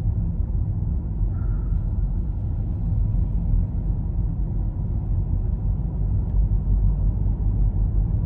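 A car driving along a highway, heard from inside: a steady low rumble of road and engine noise.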